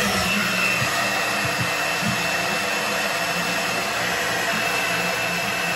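Handheld hair dryer blowing steadily, a constant rushing noise with a faint high whine.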